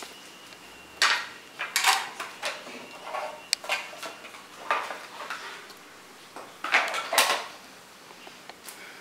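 Several short clinks and clatters of a small metal tin box and cables being picked up, handled and moved about on a tabletop.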